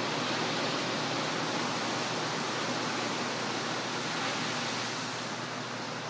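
Ocean surf breaking on the beach, heard as a steady wash of noise that eases slightly near the end.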